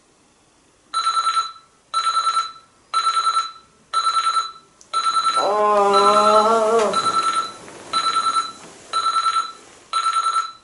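Electronic alarm beeping: bursts about once a second, each a rapid run of about eight high beeps. Partway through, a drawn-out groan from the woken sleeper rises over the beeping.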